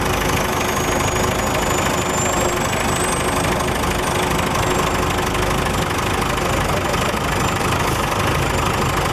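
Boat engine running steadily under way, mixed with a dense rush of wind and water.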